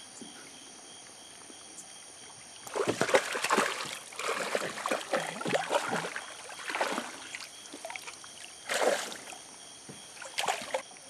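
Water splashing in irregular bursts as a hooked small surubí is brought up to the surface beside the boat, starting about three seconds in, with two shorter splashes near the end.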